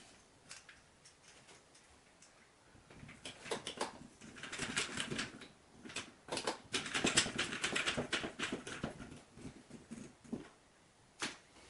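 Screwdriver turning the screws of a switch wall plate back in: faint ticks at first, then a dense run of quick clicks and scrapes from about three seconds in, with one last click near the end.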